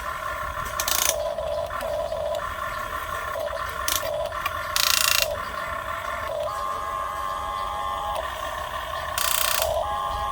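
Huina 1550 RC excavator's small electric gear motors whining, starting, stopping and changing pitch as different functions are worked. Three short rasping bursts come about a second, five seconds and nine seconds in.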